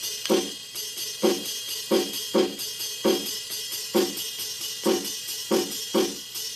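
Roll-up electronic drum pad kit played with sticks through its built-in speaker: sampled drum hits come unevenly, about two a second, over a steady ringing cymbal wash.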